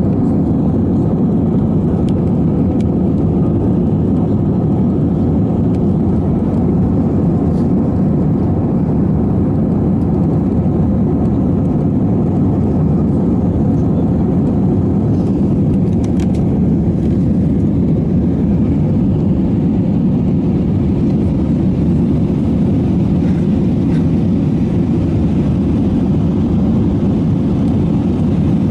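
Steady low drone of jet engines and airflow heard inside an airliner cabin in flight or on the take-off run, unchanging throughout.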